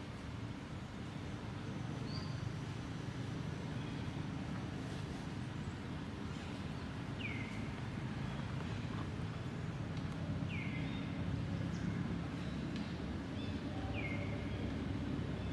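Steady low outdoor rumble with a short, high chirp falling in pitch, repeated about every three seconds in the second half.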